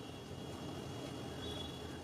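Quiet steady room noise with a faint high steady whine; no distinct handling sounds stand out.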